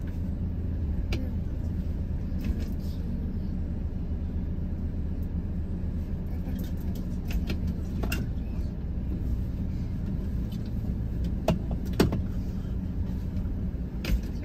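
Steady low engine and road rumble heard inside a car driving slowly, with a few sharp clicks in the second half.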